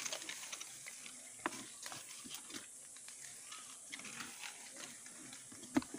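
Handling noise: rustling and scattered light clicks of hands working a cloth sack against a tree trunk, with a sharper knock about one and a half seconds in and another near the end.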